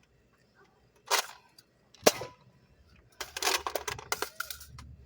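Spring-powered Nerf blasters being primed and fired: two sharp clacks about a second apart, then a quick run of clattering clicks.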